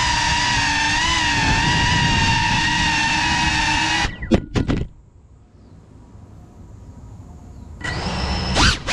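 GEPRC Cinelog 35 FPV quadcopter's motors whining steadily. About four seconds in there are a few sharp throttle blips, then the motors drop to a low idle for about three seconds. Near the end they spool back up with a rising whine.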